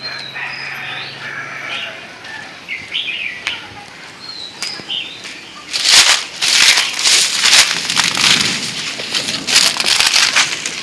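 Birds chirping. From about six seconds in, a loud, irregular rustling noise takes over.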